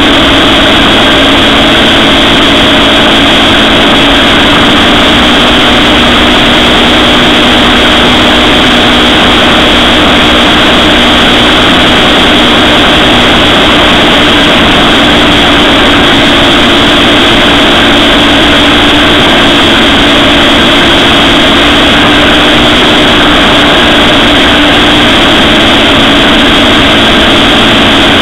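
Gyrocopter's engine and pusher propeller running steadily in flight, loud and unbroken, mixed with dense wind noise on the onboard microphone.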